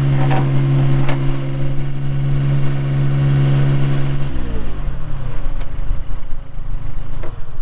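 Kubota diesel engine of a Bobcat 463 skid steer running at a steady speed, then throttled down about four seconds in, its pitch falling into a lower, uneven chug. A few sharp knocks or clanks sound over it.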